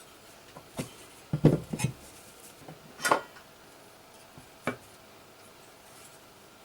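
Short knocks and clatter of hard parts being handled and set down during reassembly of an old computer: a quick run of knocks about a second and a half in, then single knocks around three seconds and near five seconds.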